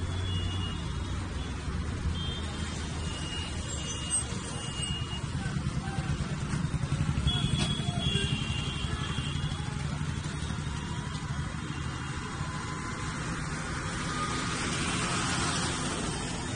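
Steady low rumble of a moving vehicle, engine and road noise, with a few brief faint high tones now and then.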